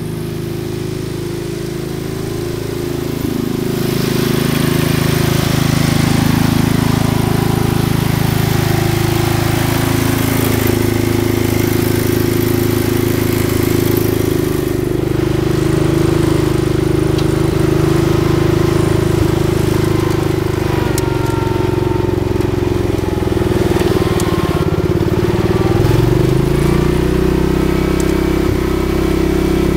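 Small excavator's engine running steadily close by, growing louder about four seconds in. Near the end its pitch dips and then climbs back, as the engine takes load and recovers.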